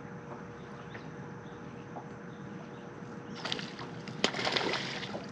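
Hooked spotted bass splashing at the water's surface beside the boat, starting about three seconds in and lasting a second and a half, with one sharp slap in the middle. Before that there is only a faint steady hum.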